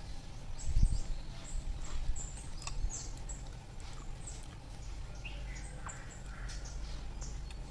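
Small birds chirping, many short high calls scattered throughout, over a low steady rumble, with a dull thump about a second in.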